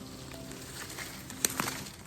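Background music with held notes. About one and a half seconds in there is a sharp crack, then a brief second one.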